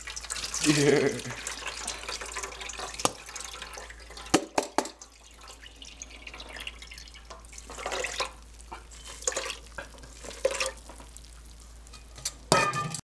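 Wet grated apple being poured from a metal bowl into a wire-mesh strainer, its juice splashing and dripping through. There are a few sharp clinks of metal on metal, and the shreds rustle and squelch as fingers press them in the strainer.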